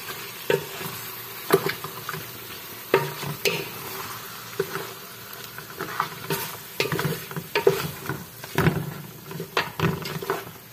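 Wooden spoon stirring and turning chicken pieces in a metal cooking pot, knocking and scraping irregularly against the pot, over a faint sizzle of the chicken frying in spiced oil.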